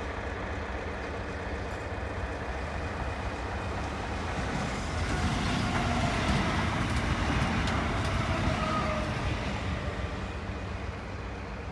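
Southern electric multiple-unit passenger train passing close by on the track, its wheels and running gear building to a peak in the middle and then easing off, with a faint falling whine as it goes by.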